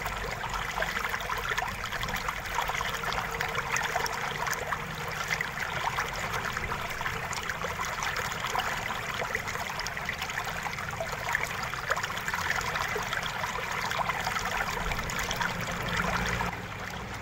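A screwdriver working the bottom-case screws out of an Asus X441U laptop's plastic case, sped up: a dense, continuous patter of small clicks and scrapes.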